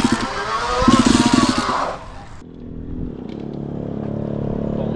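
Two-stroke dirt bike engine revving, its pitch rising and falling; about two seconds in, the sound cuts to a quieter, steady engine running.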